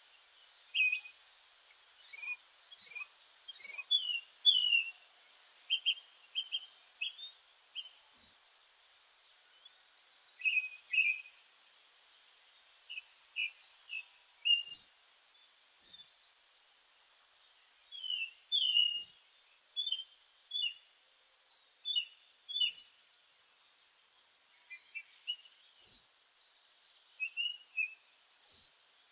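Birdsong: a repeated high trill every few seconds, mixed with many short chirps and quick falling high notes.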